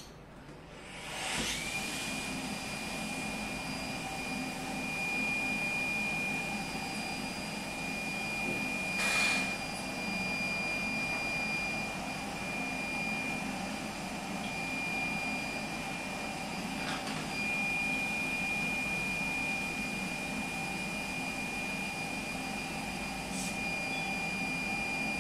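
Endo aspirator suction unit switching on about a second in and then running steadily, a motor hiss with a steady high whine. A brief louder rush comes about nine seconds in as the suction tip works in the liquid.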